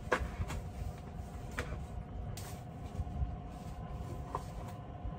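A few light knocks and clicks of cookware and other items being handled on a camp table, over a steady low hum.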